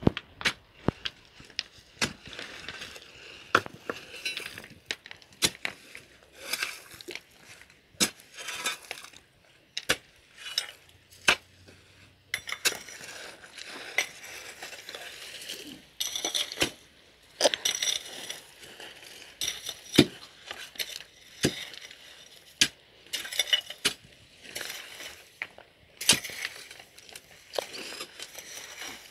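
A long steel digging bar striking and scraping into stony gravel: irregular sharp metallic clinks, about one a second, with gritty scraping between them.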